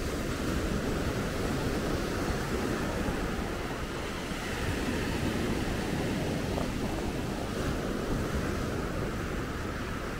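Steady rushing of sea waves and wind, with wind buffeting the microphone.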